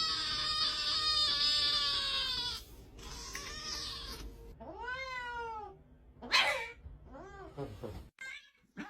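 A cat meowing: one long drawn-out meow, falling slightly in pitch, then a few shorter meows that rise and fall.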